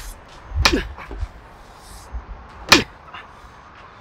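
Two loud whacks of a wooden board striking a person's body, about a second in and again near three quarters of the way through.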